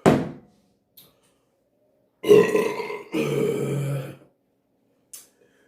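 A man belching loudly, one long burp in two parts about two seconds in, after drinking beer with his meal. A short sharp click comes right at the start.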